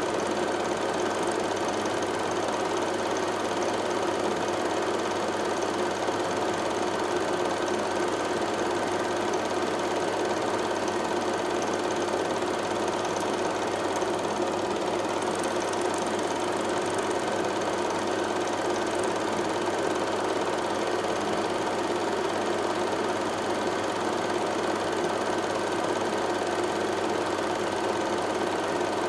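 A steady, unchanging motor-like hum made of several fixed tones.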